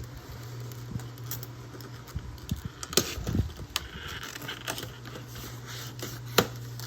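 A cardboard toy box being opened by hand: scattered sharp taps and clicks, with some brief rustling.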